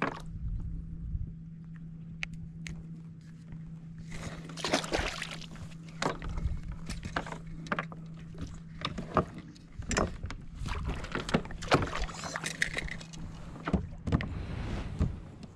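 Knocks, clatter and rushes of water-like noise on a small fishing boat, over a steady low hum that fades out near the end.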